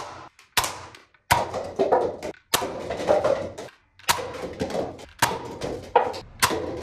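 Toy soft-bullet blaster pistol firing foam darts: about seven sharp plastic snaps, roughly one a second. Each shot is followed by paper cups clattering as they are knocked down and hit the floor.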